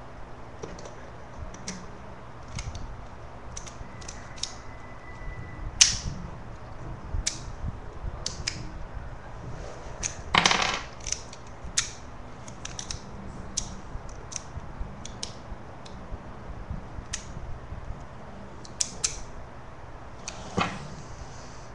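Miniature toy pistol being handled, its small metal parts giving irregular light clicks and taps. There is a sharper snap about six seconds in and a louder noise about half a second long near the middle.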